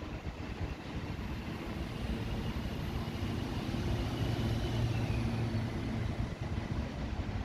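City road traffic running steadily, swelling as a vehicle passes about four to five seconds in.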